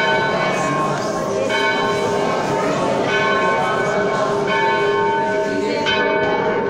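Church bell being rung, struck about every second and a half, each stroke ringing on into the next.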